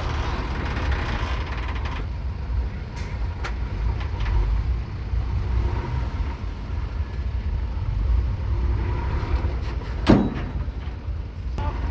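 Heavy diesel engine of a dump truck or earthmoving machine running with a steady low rumble, with one sharp bang about ten seconds in.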